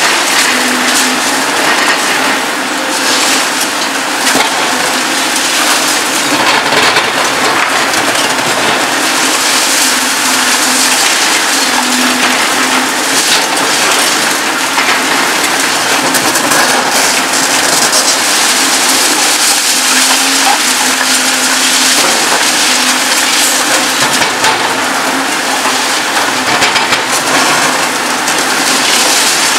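Reinforced concrete crunching and cracking as it is crushed in the jaws of a Demarec DCC-75 hydraulic concrete shear on a Volvo EC 750E demolition excavator. A low hum from the excavator's engine and hydraulics comes and goes underneath.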